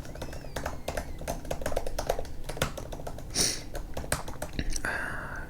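Typing on a computer keyboard: quick, irregular keystroke clicks in runs, close to the microphone. A brief hiss comes about three and a half seconds in, and a short breathy noise near the end.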